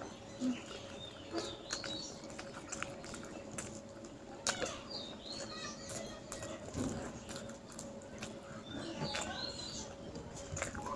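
Quiet chewing and lip-smacking from eating rice and curry by hand, with small clicks throughout. Faint bird chirps come a few times, over a low steady hum.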